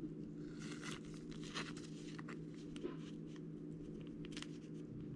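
Faint rustling and light clicks of trading cards and their plastic packaging being handled, over a steady low hum.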